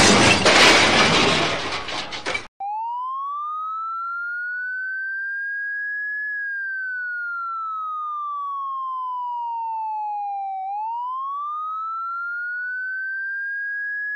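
A loud, noisy crash-like burst dies away over the first two seconds. It is followed by a siren wail: one clean whistle-like tone slowly rising, falling and rising again, about eight seconds to a full cycle.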